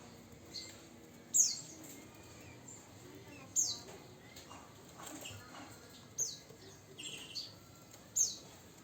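Javan bush lark giving short, sharp high notes that sweep quickly downward, about six of them at uneven gaps of a second or two, four of them loud.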